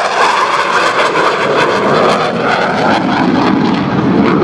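F/A-18 Hornet's twin jet engines in afterburner as the jet flies past: a loud, steady jet noise that wavers slightly.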